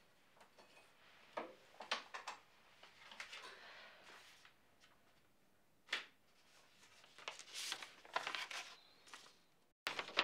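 Faint handling sounds from a wheelchair and paper post: a few light clicks and knocks, with stretches of paper rustling.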